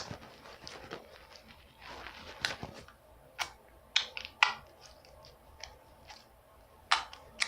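Hands squishing and stretching softened slime, giving scattered sharp sticky clicks and pops over a faint crackle, the loudest ones around four and seven seconds in.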